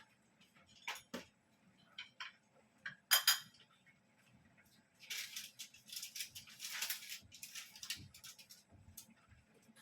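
Kitchen utensils against cookware: a few sharp separate clinks, the loudest about three seconds in, then a few seconds of busier clatter and scraping.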